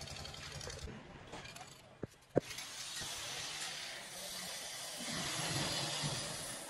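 A vehicle engine hums low for about the first second and then fades. Two sharp metallic knocks come about two seconds in, the second louder. A steady hiss of workshop noise follows, with a low engine rumble coming up near the end.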